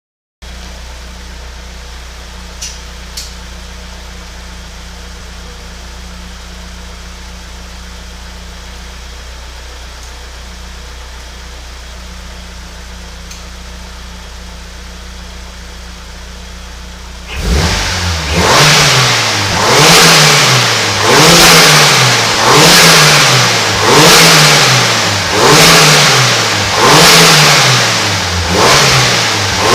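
Turbocharged Honda D16 four-cylinder engine idling steadily, then revved hard about 17 seconds in. It is blipped repeatedly, roughly once every second and a half, and each throttle lift brings a fluttering hiss from the turbo and blow-off valve.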